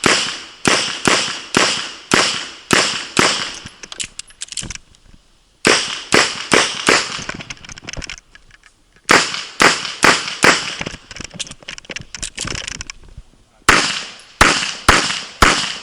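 IPSC Classic Division pistol being fired in rapid strings of shots, each shot sharp with a short echo. There are four quick bursts of several shots each, separated by brief pauses of under a second.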